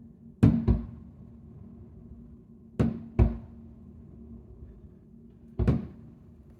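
Fireworks shells going off, sharp bangs coming in close pairs, three pairs about two and a half seconds apart.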